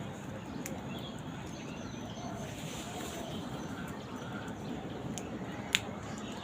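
Faint, short bird calls over a steady background rush, with a few sharp clicks, the loudest near the end.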